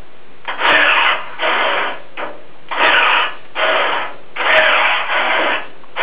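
Electric linear actuator's motor whirring in about six short runs of roughly half a second each, driving a manual hydraulic valve's control rod back and forth on command from a radio remote.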